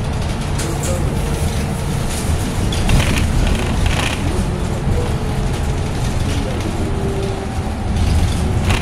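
Cabin noise of a New Flyer battery-electric bus in motion: a steady low road and tyre rumble with rattles from the interior and a faint tone coming and going.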